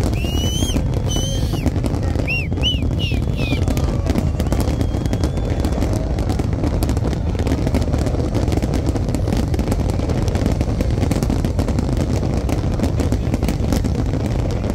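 A large aerial fireworks barrage with many shells bursting at once, heard as continuous booming and dense crackling. A few short high whistles rise and fall in the first few seconds.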